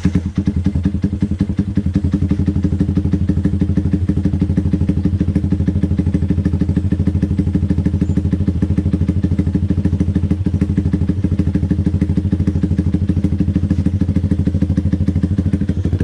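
Yamaha Sniper motorcycle's single-cylinder four-stroke engine idling steadily through a freshly fitted Pro Liner aftermarket muffler, with an even, rapid exhaust beat.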